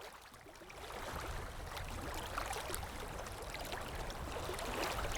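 Water flowing and babbling in a stream, a steady rush with many small splashes and drips, fading in over the first second.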